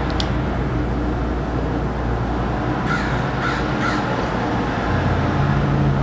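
A crow cawing three times in quick succession, about three to four seconds in, over a steady low hum.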